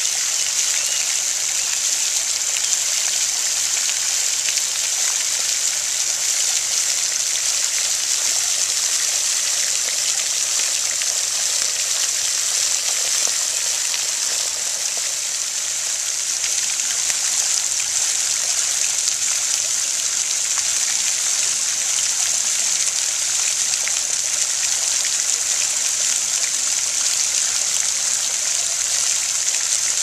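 Pond fountain's spray falling back onto the water: steady splashing with a high hiss.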